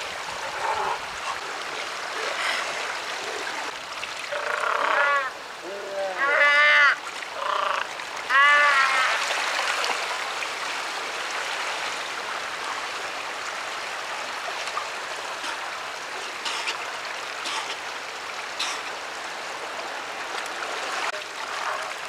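South American sea lions calling: a series of loud, wavering calls between about four and nine seconds in, over steady surf.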